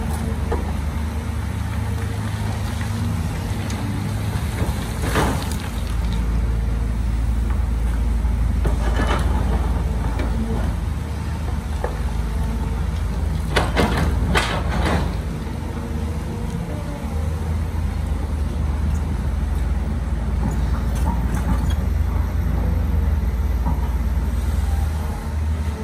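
Heavy-equipment diesel engine running steadily at a low drone, with a few short sharp noises over it, three of them close together about halfway through.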